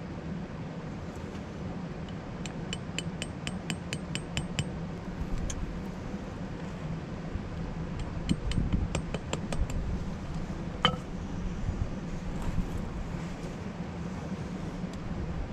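A small hatchet tapping at the base of a wooden stake in stony ground: a quick run of about ten light taps, a second run a few seconds later, then one sharper, ringing knock, over a steady low rumble.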